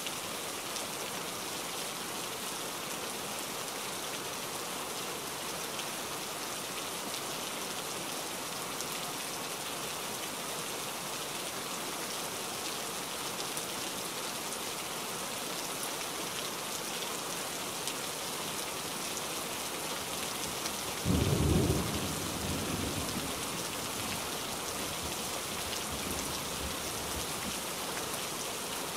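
Steady rain, with one sudden clap of thunder about two-thirds of the way through that rumbles away over a couple of seconds.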